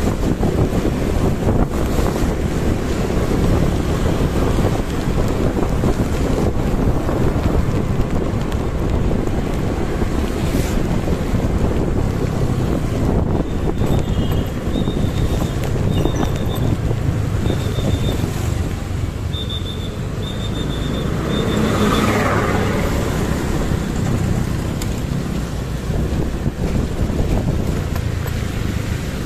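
Steady wind rush on the microphone with motorbike engine and road noise while riding on a wet street. A string of short high beeps comes in about halfway through.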